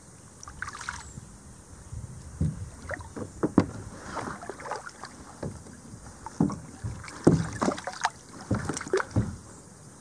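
Irregular knocks, bumps and short scrapes of a kayak being handled in, with hands and fishing gear against the hull while a small catfish is unhooked. The knocking starts about two seconds in and dies away near the end.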